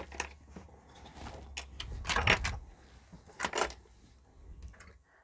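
A few sharp clicks and knocks of small metal parts and tools being handled and set down on a cutting mat, the loudest two about two seconds in and about three and a half seconds in.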